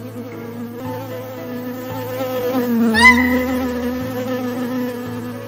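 Buzzing of a swarm of honeybees as a cartoon sound effect: a steady drone, with a quick rising sweep about three seconds in that is the loudest moment.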